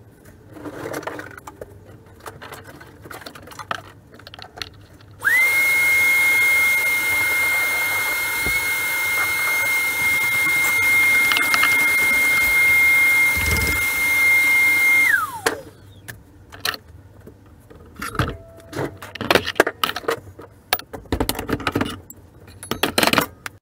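Shop vacuum switched on about five seconds in: its motor whine jumps to a steady high pitch over a rush of air, runs for about ten seconds, then is shut off and winds down. Scattered clatters and knocks of things being handled come before and after.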